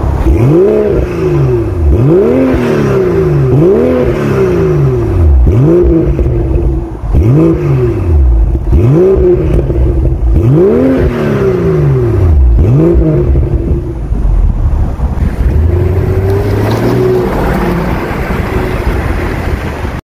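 BMW X4 M40i's B58 3.0-litre turbocharged inline-six heard at the exhaust, revved in a series of about eight quick throttle blips, each climbing and falling back in pitch, roughly one every second and a half. About fourteen seconds in it settles to a steady idle.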